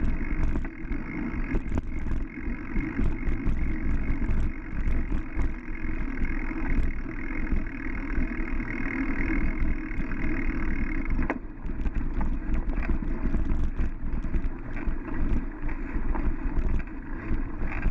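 Muffled, steady rumble of a bicycle rolling fast over a sandy dirt trail, heard through a GoPro on the bike: tyre and wind noise, with frequent rattling clicks as it jolts over bumps.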